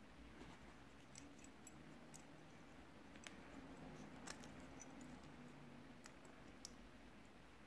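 Near silence with faint, scattered small clicks and taps, about eight of them, as a small homemade brass mechanism is handled and its metal parts knock together.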